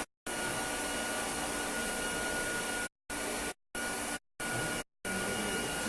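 Steady rushing hiss of air from a BGA rework station's fans or hot-air blower, with a faint thin whine on top. The sound cuts out abruptly to dead silence about five times, each for a fraction of a second.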